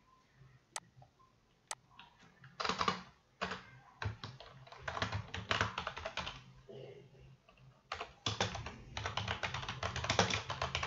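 Typing on a computer keyboard in quick bursts of keystrokes. Before the typing, about a second in, there are two sharp single clicks.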